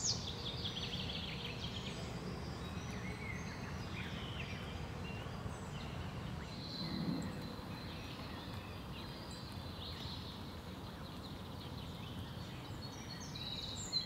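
Outdoor ambience: a steady low background hiss with faint, scattered bird chirps. A quick run of high chirps falls away in pitch in the first second.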